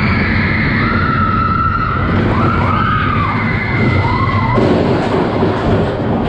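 Mine train roller coaster cars rumbling along the steel track, with repeated metallic squeals that rise and fall in pitch over the first few seconds. A brighter hiss joins the rumble about halfway through.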